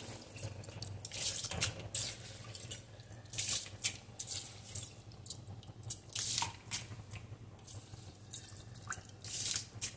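Pot of water at a rolling boil with rice just added, bubbling and popping in irregular little splashes.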